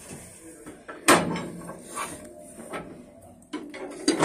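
Several metallic knocks and clanks from the fittings in a steam locomotive cab as they are handled. The loudest comes about a second in and another right at the end, with fainter ones between.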